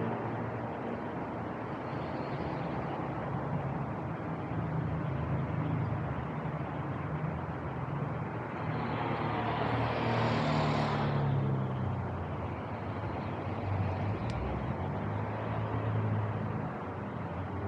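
Road traffic: a steady low hum from vehicles on the street, with one car passing close, swelling and fading about ten seconds in.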